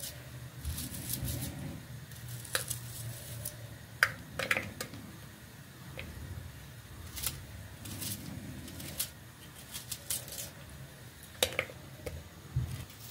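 Small kitchen knife clicking and scraping as papery skins are peeled off a bulb by hand, with trimmings dropping into an aluminium pot: irregular light clicks and rustles with a few sharper ticks, over a low hum.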